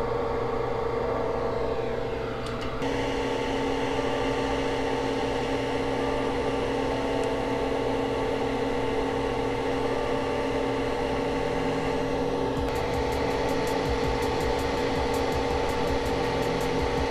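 Hot-air rework station blowing steadily with a fan whine as it heats a flash drive's controller chip to lift it off the board for a controller swap. Rapid faint clicking joins in over it about two-thirds of the way through.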